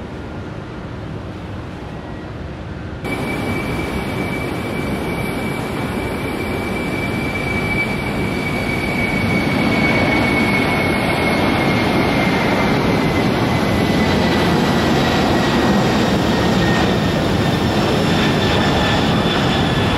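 Boeing 747 freighter's four jet engines at takeoff power: a broad roar with a high whine that slowly falls in pitch, growing louder over several seconds and then holding steady. It is preceded by about three seconds of wind rumble on the microphone.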